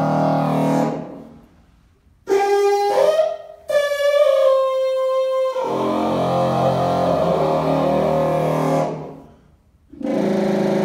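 Miraphone tuba played in a free improvisation: thick, many-note swells that fade away, broken by a clear high held note that slides upward and then holds. After a short pause near the end the thick layered sound comes back.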